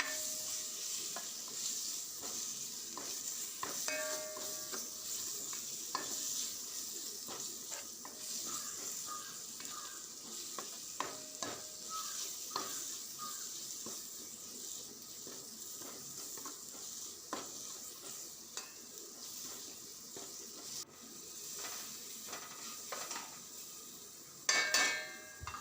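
An onion-tomato masala with chilli and coriander powder sizzling in a pan while a spoon stirs it, scraping and knocking against the pan. The sizzle slowly fades, with a louder clatter near the end.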